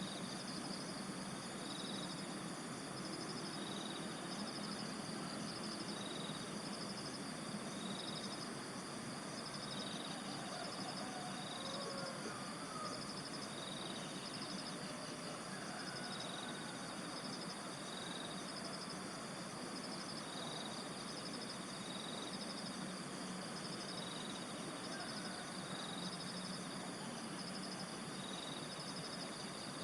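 Rural ambience after rain: insects trilling steadily in high repeating pulses, about one every two seconds, over an even background hiss, with a few faint bird calls in the middle.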